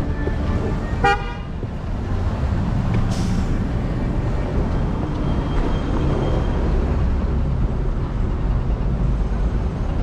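A vehicle horn toots once, briefly, about a second in. Under it is a steady low rumble of wind on the microphone and street traffic from the moving scooter, with a short hiss about three seconds in.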